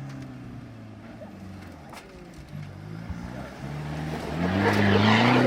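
Off-road 4x4's engine running, then revving up about four seconds in: the pitch rises and it grows much louder near the end, with a rush of noise at the peak.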